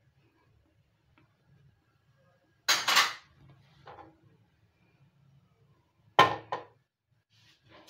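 Non-stick kadhai knocking against the gas stove's metal pan support as it is handled by both handles, twice: once about two and a half seconds in, and again about six seconds in with a quick second knock.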